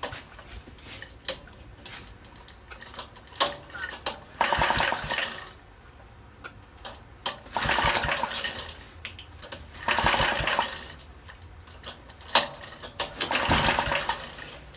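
Briggs & Stratton engine being pull-started by its recoil starter rope: four pulls, each about a second of cranking, a few seconds apart. The engine cranks but does not catch. Sharp clicks come between the pulls.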